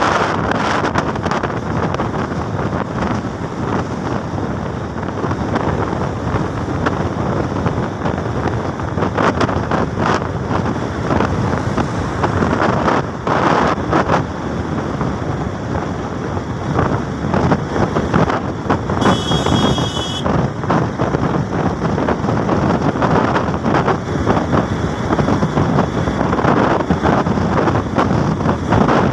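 Wind buffeting the microphone of a camera riding on a moving vehicle at road speed, mixed with road and engine noise. A short high-pitched tone sounds briefly about two-thirds of the way in.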